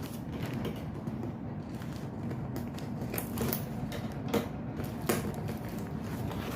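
A parcel being opened by hand: scattered clicks, creaks and crinkles of cardboard and packaging, with a few sharper clicks in the second half.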